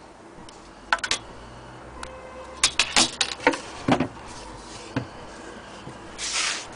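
Handling noises: sharp clicks and knocks coming in small clusters, then a short scraping rustle near the end.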